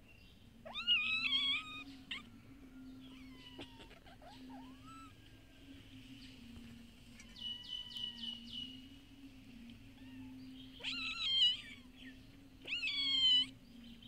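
Street kittens meowing: one loud meow about a second in, then two more near the end, the last rising sharply in pitch.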